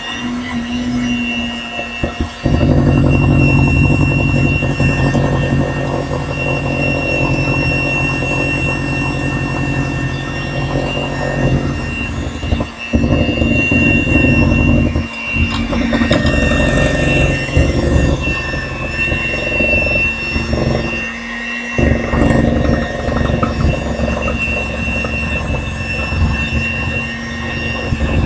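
Electric hand mixer running steadily with its beaters in cake batter in a glass bowl, giving a constant high-pitched motor whine over a steady hum. The sound dips briefly a few times, around 2, 13, 15 and 22 seconds in.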